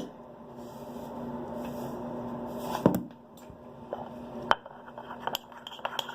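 Knocks and light clicks of a utensil against a bowl as a slime mixture is handled, over a steady low hum. There is one knock about three seconds in and another about halfway, then a run of small clicks.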